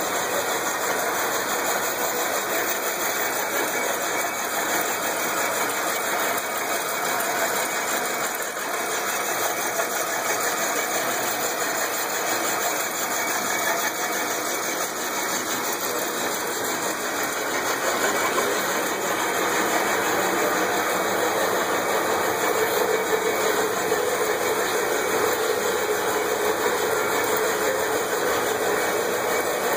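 Electric motor belt-driving the cutaway 1953 Ford Golden Jubilee tractor's four-cylinder engine and drivetrain, turning it over without firing. The result is a steady mechanical whirring and clatter from the moving gears, valves and pistons, a little louder in the second half.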